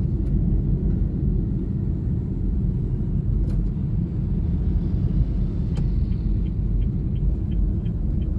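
Steady low rumble of a car driving in town traffic. About six seconds in, a fast, regular ticking starts, about four ticks a second.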